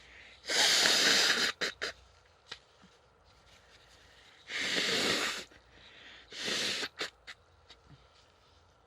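A person blowing their nose hard three times, each blow a long hissing blast of about a second, with short sniffs after the first and last blows.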